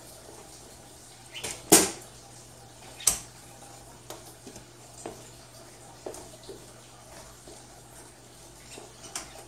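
Metal frame of a folding rollaway bed clanking as it is unfolded and lowered flat: two loud clanks a second and a half apart, the first just under two seconds in, then a few lighter knocks.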